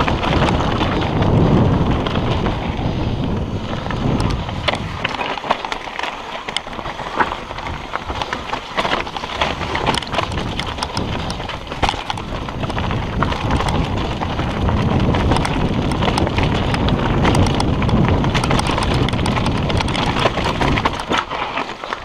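Mountain bike riding fast down a rocky, gravelly trail: tyres crunching over loose stones and the bike rattling, with many sharp clicks and knocks. Wind buffets the camera microphone as a low rumble, heaviest in the first few seconds and again through the second half.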